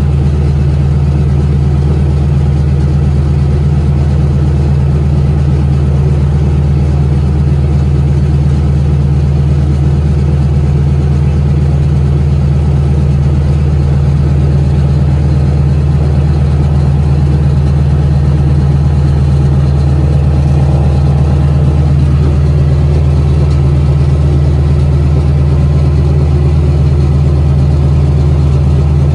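Harvard trainer's Pratt & Whitney R-1340 Wasp radial engine running steadily close by, a loud, deep, unchanging engine note.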